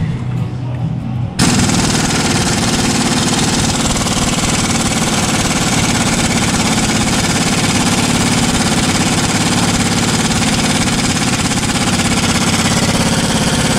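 Pneumatic impact wrench hammering steadily and without a break on a tight front-suspension bolt, starting about a second in.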